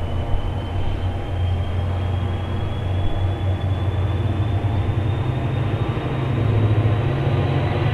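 New Jersey Transit diesel locomotive's engine running with a deep drone and a high turbocharger whine that slowly rises in pitch. The engine gets slightly louder near the end.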